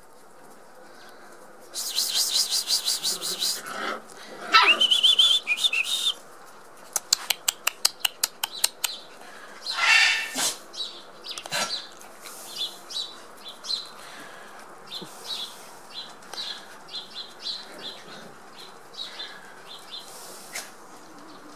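Six-week-old Border Collie puppies at play, giving high-pitched yelps and squeals; the loudest is a sharp squeal that rises and holds about a quarter of the way in, with short yelps around the middle. Birds chirp in fast trills and a long string of short chirps.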